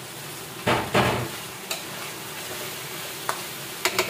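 Squash and chicken sizzling in a wok while a metal spatula stirs them. Two louder bursts come about a second in, and a few sharp clicks of the spatula against the pan follow later.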